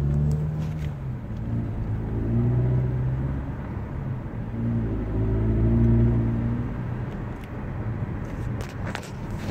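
A 2016 Mazda 6 driving, heard from inside the cabin: a steady low engine and road rumble whose engine note rises and falls about three times. A few light clicks near the end.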